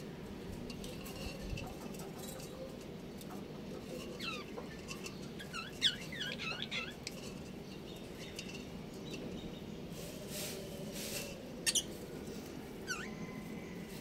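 Budgerigars chirping on and off, with a quick run of short, gliding chirps about halfway through and a few sharp calls near the end, over a steady low hum.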